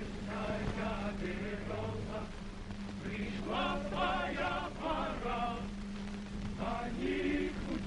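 A choir singing a Soviet work song, on an early sound-film track with a steady low hum underneath.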